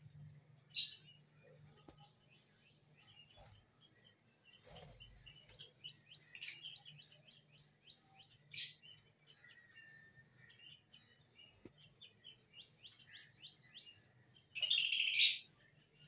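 Caged lovebirds chattering in rapid, high chirps, with a few louder calls. Near the end comes one loud, harsh call just under a second long.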